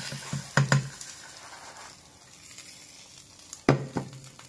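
Hot olive oil sizzling faintly in a frying pan, fading away over the first two seconds, then a single sharp knock a little before the end.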